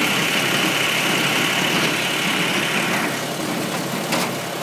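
International Harvester 47 hay baler running with its tractor, a steady machinery clatter. A high whine stops about three seconds in, and a sharp clack comes near the end.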